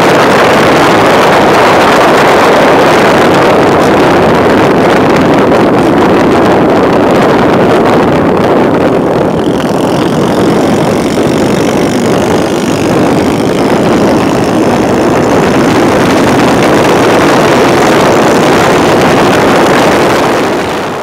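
Motorcycle riding at road speed: loud, steady wind rush on the microphone with the bike's engine running underneath, easing a little partway through.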